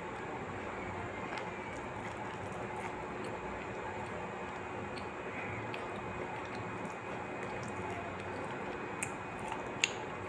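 Steady background hiss with a faint hum, and two small clicks near the end.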